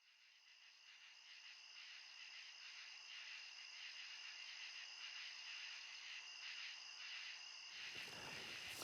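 Faint, steady chirring of insects in high, even bands, fading in from silence. About a second before the end, a wider rushing noise joins.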